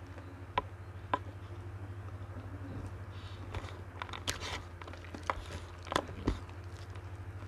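Mukbang eating sounds: scattered sharp crunches and clicks of a fried cracker being broken by hand and eaten, thickest in the second half, over a steady low hum.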